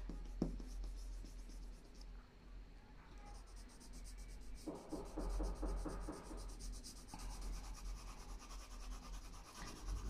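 Pencil shading on drawing paper: soft scratchy back-and-forth strokes, with a run of quicker strokes at about four a second around the middle.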